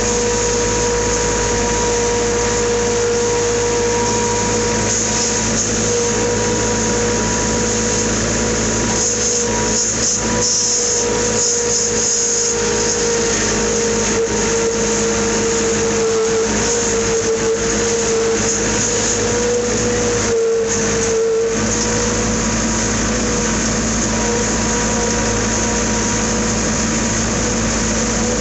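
A farm machine's engine running steadily under load, with a constant high whine over the rumble. Briefly, about two-thirds of the way through, the low rumble drops and the whine rises a little.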